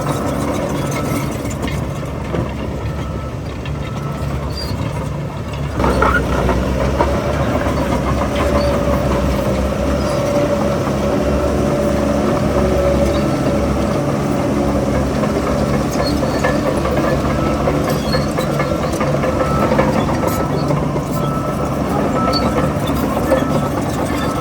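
Heavy diesel engine of earthmoving machinery running steadily, its note stepping up suddenly about six seconds in and then holding under load.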